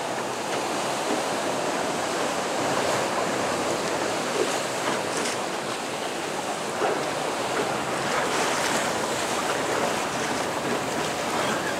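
Steady rush of ocean waves and surf washing around the boat and against the rocks, with wind on the microphone.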